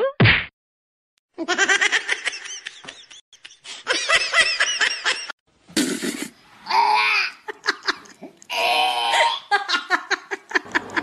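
A person laughing hard in quick repeated peals, then, after a short break about five seconds in, more laughter and voice sounds.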